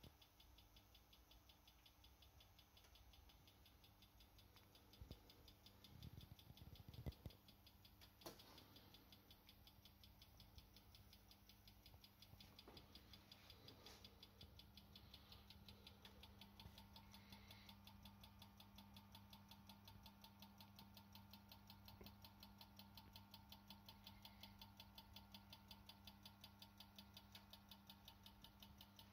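Near silence: a faint low hum with a faint, even ticking at about four ticks a second, and a few soft knocks in the first eight seconds.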